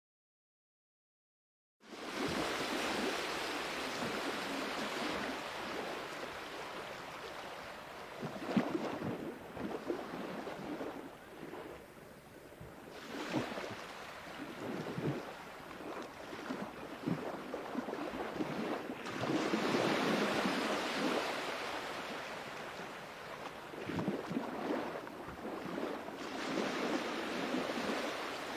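Sea waves washing ashore, the surf swelling and falling back in repeated surges every few seconds. It starts about two seconds in after a moment of dead silence.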